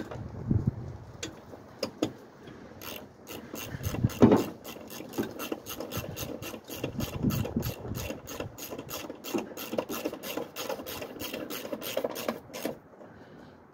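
A hand ratchet clicking in an even run of about four clicks a second for around ten seconds, then stopping. A few separate knocks come in the first few seconds.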